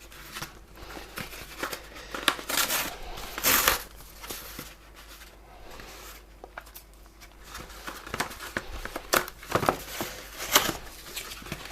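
A small product box being opened by hand: packaging tearing and plastic and cardboard crinkling in irregular bursts.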